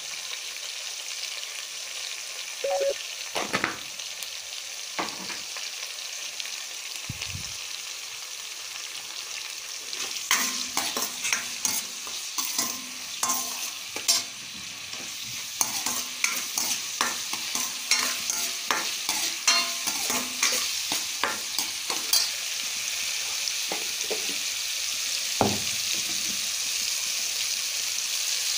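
Onions and tomatoes sizzling in oil in a steel kadai, sautéing down as the base for a fish curry, with a steel ladle stirring and scraping against the pan. The sizzle is steady; the ladle's scrapes come only now and then at first and then come thick and fast from about a third of the way in.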